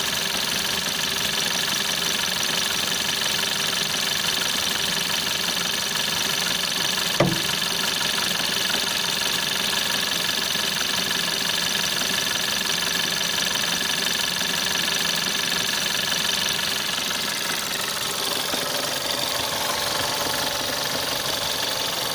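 1.4 TSI CAXA turbocharged four-cylinder petrol engine idling, with an extraneous drum-like knocking beneath it that points to a fault the owner is trying to trace. One sharp click sounds about seven seconds in, and a high whine fades out near the end.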